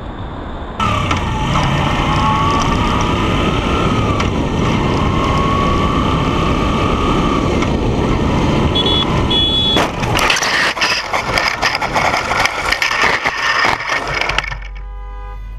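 Motorcycle riding with engine whine and road noise, then from about ten seconds in a crash: a run of knocks, clatter and scraping as the bike goes down. The clatter stops about a second before the end, leaving a quieter steady hum.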